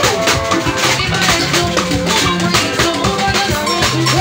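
Dance music with a steady, driving percussion beat over a bass line and held instrument notes.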